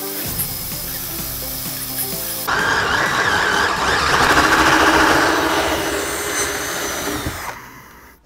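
Background music, then about two and a half seconds in a DeWalt 18V cordless combi drill with a 9 mm HSS bit comes in loud, running fast as the bit breaks through the last of the steel, and stops near the end.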